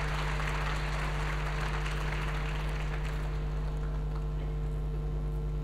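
Scattered audience applause in an ice rink that dies away about three seconds in, leaving a steady low electrical hum.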